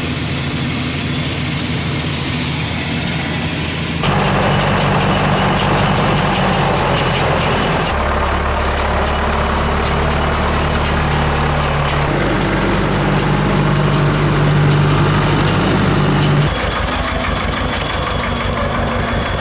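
Diesel farm machinery running, the engine note changing abruptly every four seconds or so: a combine harvester unloading grain, then a tractor pulling a round baler. Near the end a tractor idles with a steady, rapid chug.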